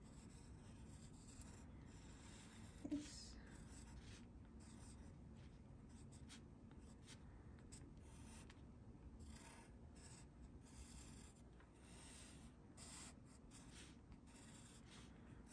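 Faint scratching of a pencil on watercolour paper, in many short irregular strokes as lettering is outlined and shaded. A brief low sound stands out about three seconds in.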